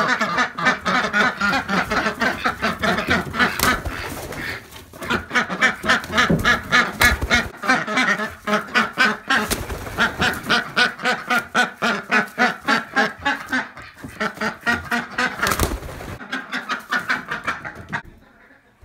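A white domestic duck quacking in a rapid, steady run of about five quacks a second, with a couple of brief pauses; the calls stop shortly before the end.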